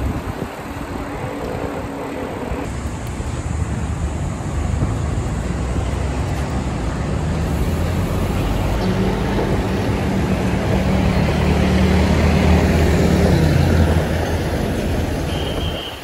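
Wind noise on the microphone of a moving bicycle, with road traffic around it. A motor vehicle's engine drone builds about nine seconds in, is loudest a few seconds later, and drops off about fourteen seconds in.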